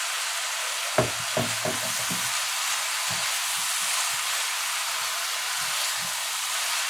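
Diced eggplant and eddo frying in hot oil in a pan: a steady sizzle. A spoon stirring against the pan adds a cluster of knocks and scrapes about a second in, and a few fainter ones later.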